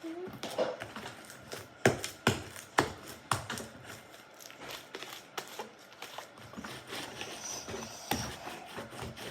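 Sticky slime being pressed onto and pulled off a tabletop, making a string of wet clicks and snaps. The four loudest come about half a second apart, a couple of seconds in, followed by softer ticking and rustling.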